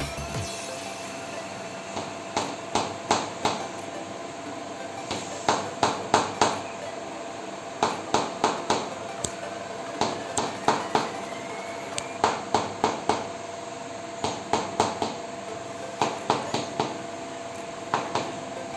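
Percussive hammer massage: sharp taps in quick runs of about four, roughly three a second, with a short pause between runs.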